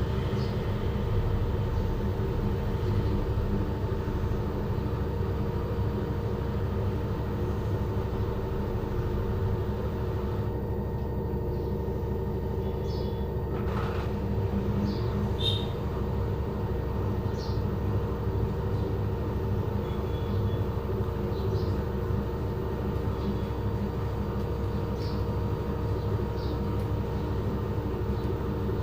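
LG front-load washing machine spinning its drum at a steady speed: a continuous low rumble and motor hum, with a few faint short high squeaks now and then.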